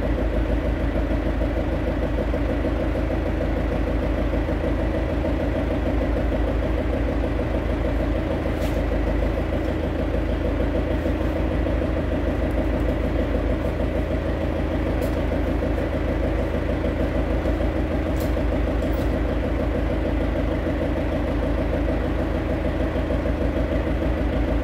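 Forklift engine idling steadily while it holds a load on its forks, with a few faint clicks.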